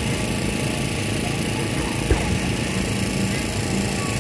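Fireworks display ambience: a steady wash of background noise, broken once about two seconds in by a single short firework thump.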